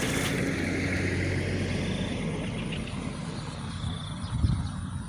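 A steady low engine drone that fades after about three seconds, with a single thump near the end.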